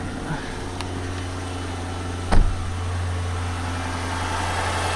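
Chrysler 5.7 Hemi V8 idling steadily just after a start, with a small ticking that the owner suspects comes from the driver's-side exhaust manifold, perhaps a broken bolt. A single sharp knock sounds about halfway through.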